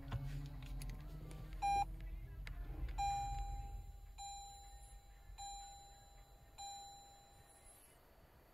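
The push-button power switch of a Toyota Prius Prime clicks, and a short electronic beep follows as the car comes to READY. Then four identical longer chimes sound at even spacing, a little over a second apart.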